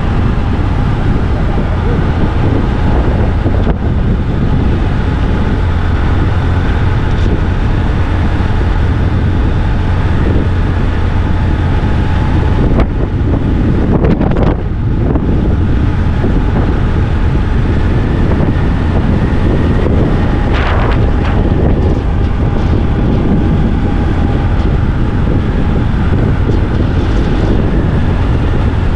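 Loud, steady wind rumble buffeting the microphone, the rush of air while riding a folding bike.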